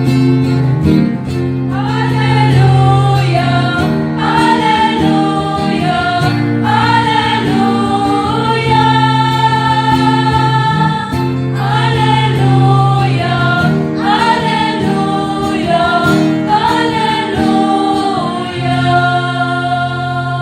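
A church choir singing a hymn in sustained chords with guitar accompaniment, amplified through the church's sound system for a sound test. The choir and accompaniment are loud and full, over a steady held low note.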